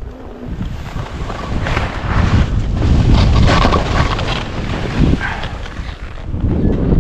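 Wind rushing over the microphone as a skier drops down a steep slope, with the skis running through powder snow; loudest in the middle of the descent.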